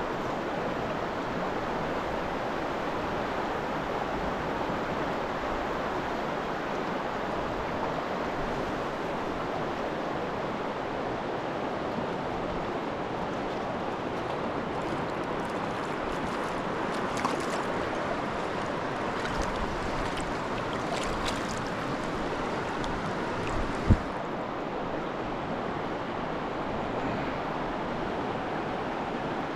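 Shallow, rocky river rushing steadily, with one sharp thump about three-quarters of the way through.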